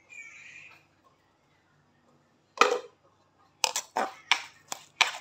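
Pestle pounding into a stone mortar (cobek and ulekan), crushing chilli, shallot and tempe: one sharp knock about halfway through, then a run of knocks at about three a second near the end.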